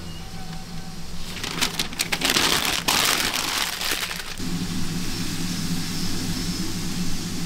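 A crackling, rustling noise for about three seconds that stops suddenly, then a steady low engine hum.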